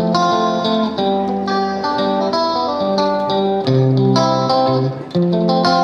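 Background instrumental music with plucked guitar notes.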